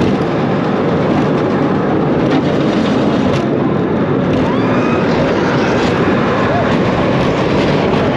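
Steel roller coaster train running along its track, heard from the front seat: a steady loud rush of wind on the microphone mixed with the rumble of the wheels on the rails.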